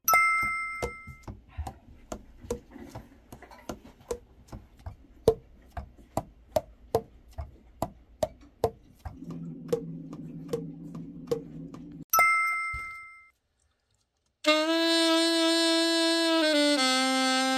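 Alto saxophone keys pressed and released over and over, the pad cups clicking shut about twice a second; the new pads are seating tightly on their tone holes. A chime sounds at the start and again near 12 seconds, and after a short silence the Yamaha YAS-275 alto saxophone is played in long held notes, stepping down in pitch near the end.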